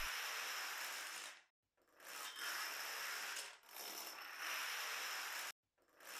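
Noisy mechanical sound effect, a rasping whir of machinery, in stretches of about a second and a half separated by brief silences, one of them cut off suddenly, accompanying an animated structure being assembled.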